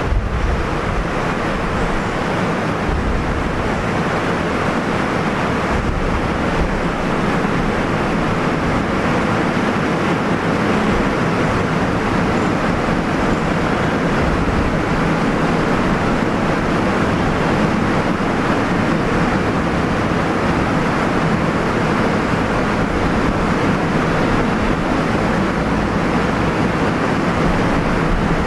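A steady, loud rushing hiss with no change and no distinct events.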